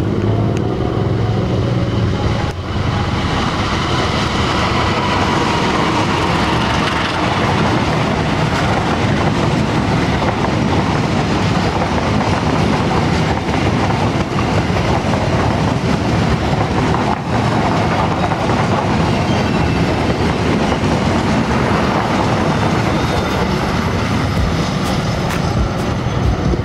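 Passenger train passing close by: a long rake of coaches rolling past with steady wheel-on-rail noise, the wheels clicking over rail joints near the end.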